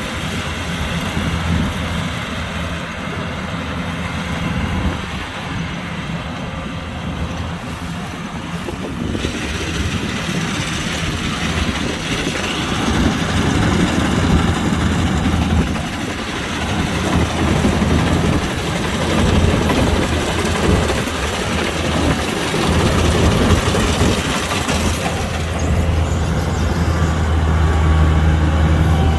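Kubota combine harvester running steadily, a low engine hum under a dense mechanical clatter, growing somewhat louder after about twelve seconds.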